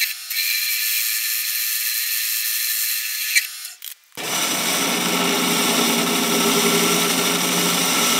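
Atlas 618 bench lathe running and taking light cuts on a cast-iron back plate, a steady machine sound with level tones. Just before 4 s it breaks off abruptly and comes back fuller and lower-pitched.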